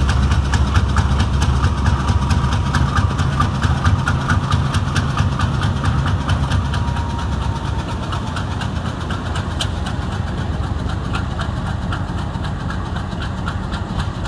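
RGE-20 diesel-electric locomotive running with a heavy low engine rumble as it pulls its train slowly out of the station, with a rapid, regular ticking over it. It grows somewhat quieter about halfway through as the locomotive moves off.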